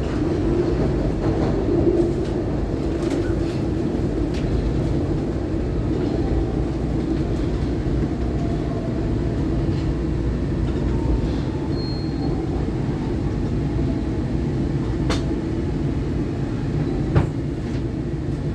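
SEPTA Market-Frankford Line Adtranz M4 subway train running through an underground station and tunnel, a steady low rumble of wheels on rail. A few sharp clicks come near the end, the loudest about a second before it.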